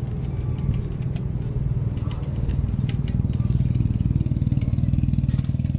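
City street noise heard from a moving bicycle: a steady low rumble with motor traffic and scattered light clicks and rattles, the rumble taking on a fast flutter in the second half.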